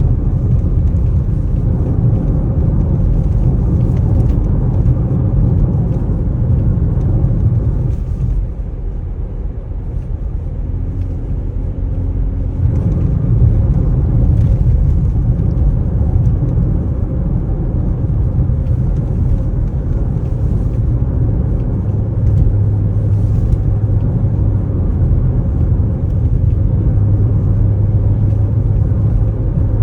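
Mercedes interior trim creaking and rattling in many small ticks over the low rumble of the car on the move, heard from inside the cabin. The rumble eases for a few seconds in the middle.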